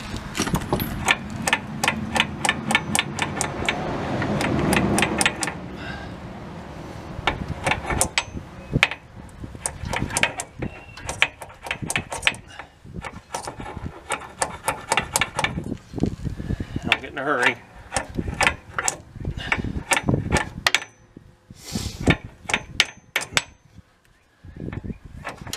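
Small hammer tapping on the pressed-on inner wheel seal of a 1966 Kaiser Jeep M109A3 truck's rear axle spindle, working around it to drive it loose. The metal taps come rapidly, several a second, in runs broken by short pauses.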